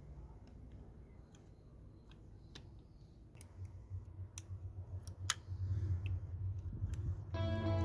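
Scattered light clicks and taps, as of small model-car parts being handled and fitted, over a low hum that grows louder about halfway through. Guitar music comes in near the end.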